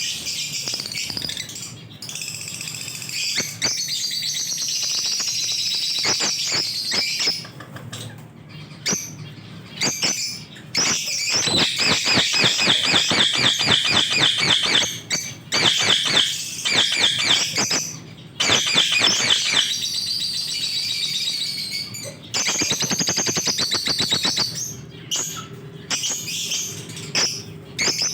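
Lovebirds chattering: rapid runs of shrill, high chirps in stretches of a few seconds with short pauses between them.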